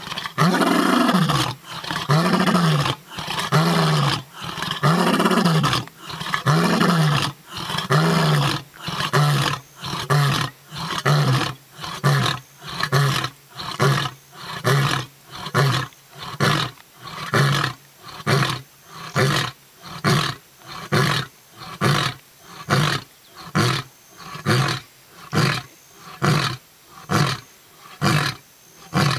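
Male lion roaring: a few long roars that swell and fade in pitch, then a long run of short, burp-sounding grunted roars at about one a second, the typical close of a lion's roaring bout.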